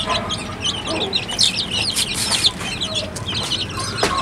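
A brood of young chicks peeping busily, many short high chirps overlapping without a break, with a hen's lower clucks now and then beneath them.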